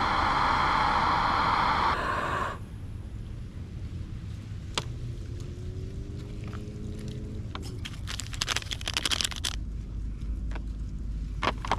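Jetboil camping stove's gas burner hissing steadily, then cut off abruptly about two and a half seconds in. After that come light scraping and crackling handling noises over a constant low rumble of distant traffic.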